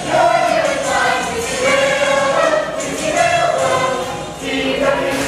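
A group of voices singing together in chorus over musical accompaniment.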